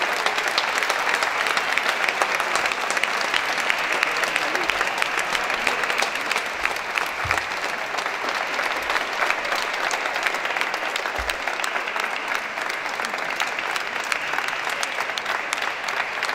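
Audience applauding: a steady, dense clapping of many hands that eases slightly near the end.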